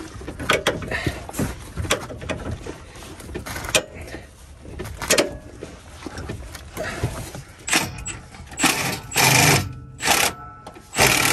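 Knocks, clunks and rattles of a Jeep Wrangler JL being rocked by hand on its suspension while a new lower control arm is worked into line for its bolt. Louder, longer scraping rattles come near the end.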